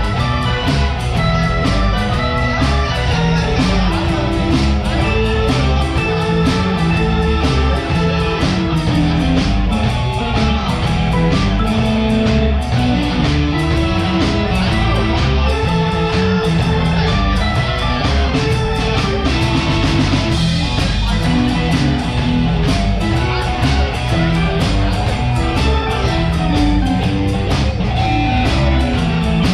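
Blues band playing live: electric guitar over bass, drums and keyboard, with a steady beat.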